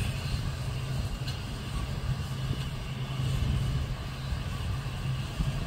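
Diesel engines of semi trucks idling, a steady low drone.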